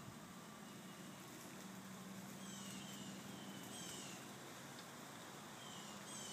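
Faint outdoor background of small birds chirping in short, repeated high notes, over a low steady hum.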